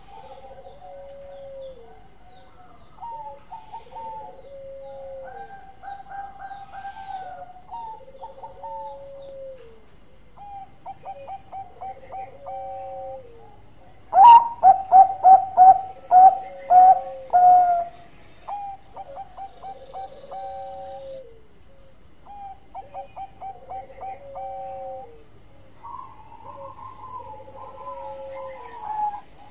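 Zebra doves (perkutut) cooing: fainter coo phrases repeat throughout. About halfway through comes a loud, close series of about nine quick staccato coo notes lasting some four seconds.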